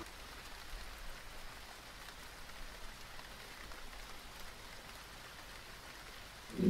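Faint, steady hiss of background noise, with no music or speech over it.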